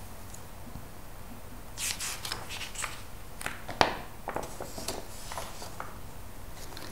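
Glossy magazine pages being turned and smoothed by hand: crisp paper rustling and crinkling that starts about two seconds in, with one sharp snap near the middle as a page flips over.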